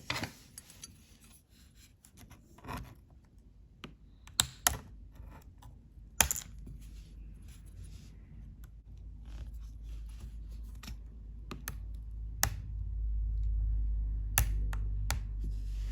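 Sharp little plastic clicks and snaps at irregular intervals, a 2011 MacBook Air's keycaps being pried off and snapped back onto the keyboard. A low rumble builds in the second half.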